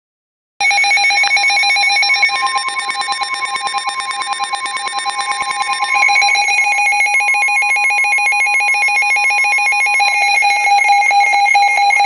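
Midland weather alert radio's electronic alarm going off: a loud, fast warbling beep made of several high pitches, triggered by a NOAA Weather Radio Severe Thunderstorm Warning. A steady single-pitch tone, the NOAA 1050 Hz warning tone, runs under it for stretches.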